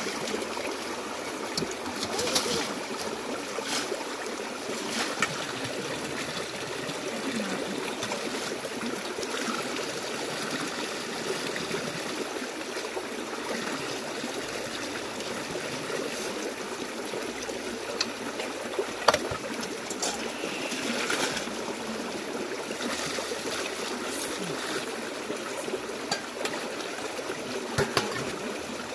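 Shallow stream running steadily over stones, with water splashing and pouring as potatoes and herbs are rinsed in a metal bowl at its edge. A few sharp knocks stand out, the loudest about two-thirds of the way through.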